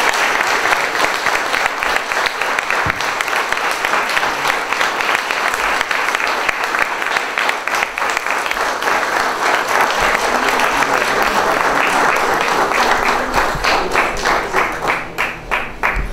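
Audience applauding steadily; the clapping thins out into separate claps near the end.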